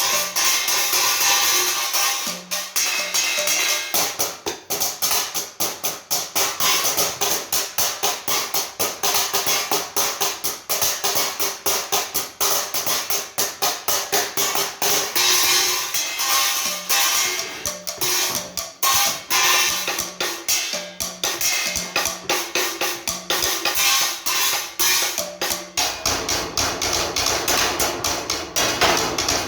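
Drum kit played with fast, busy strokes and steady cymbal shimmer along with a light-metal backing track. The bass gets heavier near the end.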